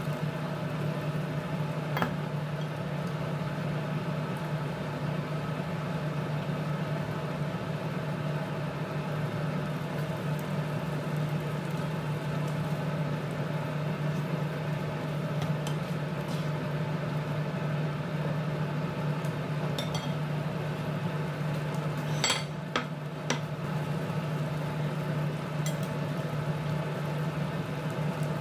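Pepper, onion and tomato sauce simmering in a frying pan over a steady low hum. A utensil clicks sharply against the pan about two seconds in, and a few more times about three quarters of the way through.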